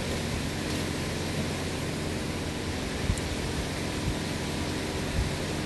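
Steady background noise of a car repair workshop: an even hiss with a low hum underneath, and a faint click about three seconds in.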